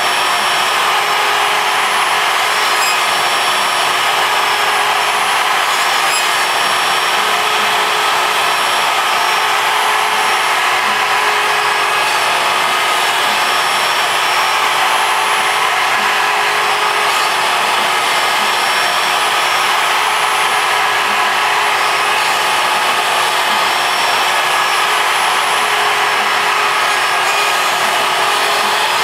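ShapeOko CNC mill's router spindle cutting MDF with an end mill, a steady high motor whine over the rasp of the cut, with the dust-shoe vacuum drawing air through its hose at the same time.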